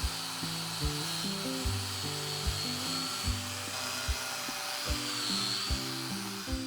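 A power tool's high, wavering whine and hiss over background music with a steady beat; the tool noise cuts off abruptly just before the end.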